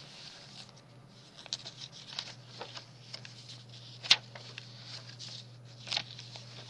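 Paper rustling and soft handling noises as the pages and paper inserts of a handmade journal are turned and handled, with a sharp tap about four seconds in and a lighter one near six seconds.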